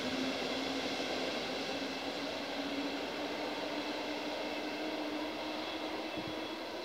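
An NS Mat '64 electric multiple unit moving away along the track. Its running noise and a steady low hum slowly fade as it recedes, with one brief low thump about six seconds in.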